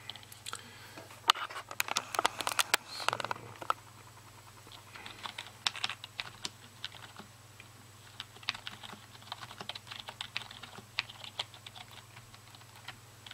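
Typing on a full-size USB computer keyboard: irregular runs of key clicks with short pauses between words, as a sentence is typed out.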